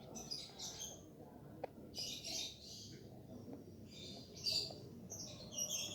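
Small birds chirping in quick high clusters, about four times.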